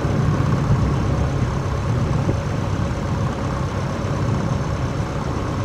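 A sailing ketch's engine running steadily: an even low rumble with a faint steady hum above it.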